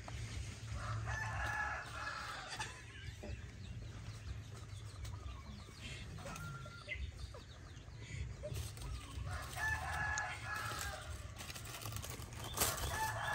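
A rooster crowing in the background, twice: once about a second in and again about nine and a half seconds in, with a third crow starting near the end.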